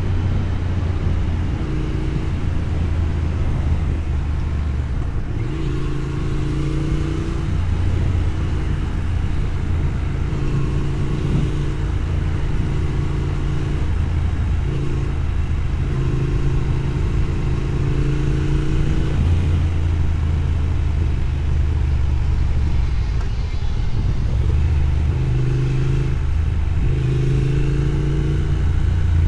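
Triumph Thruxton parallel-twin engine running through a Motone X-pipe while the motorcycle is ridden. The engine note shifts in pitch every few seconds as speed and throttle change, with a hiss of wind or road noise over it.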